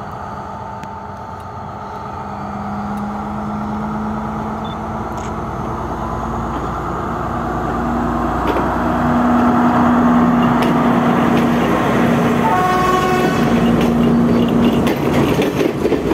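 Class S14 diesel multiple unit pulling away and passing close by, its diesel engine's steady drone growing louder as the power car comes alongside about eight seconds in, then the carriages rolling past. A short horn toot sounds a little past the middle.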